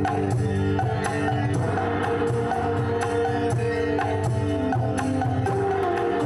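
Instrumental music: sustained melody notes over a steady percussion beat.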